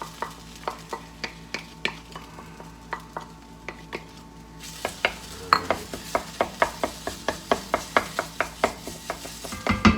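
A spoon stirring and clicking against a carbon steel skillet in quick, even strokes, with sizzling that grows louder about halfway through as garlic and tomato paste cook in the hot pan.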